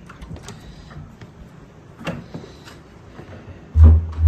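Scattered light clicks and knocks, then two heavy, low thumps in quick succession near the end.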